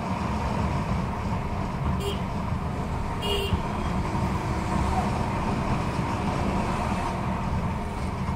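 Motorcycle riding on a road: a steady rumble of engine and wind on the microphone, with two short horn toots about two and three and a half seconds in.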